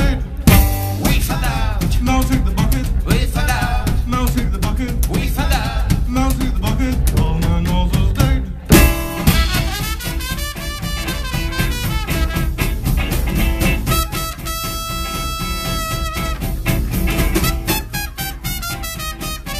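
Small swing band playing live: archtop guitar, drum kit, double bass and trumpet. About nine seconds in, the band hits a sharp accent and briefly drops out. The trumpet then takes the lead and holds one long steady note a little later.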